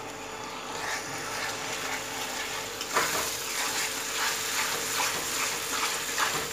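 Tomato puree frying and sizzling with masala in a metal kadhai while a metal spatula stirs and scrapes through it. From about three seconds in, the scraping strokes come quickly, a few a second.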